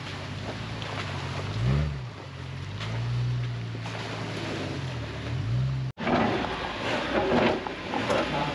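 Jeep engine running, its revs rising and falling twice. About six seconds in the sound cuts abruptly, and a rougher noise with a few sharp clicks takes over.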